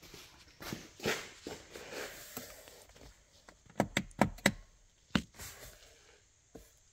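Soft shuffling and movement noise, then a handful of short, sharp clicks and knocks about four to five seconds in.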